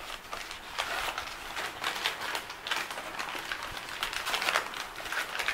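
Old, yellowed newspaper crinkling and rustling in the hands as it is unwrapped from a small glass, with an irregular run of crackles.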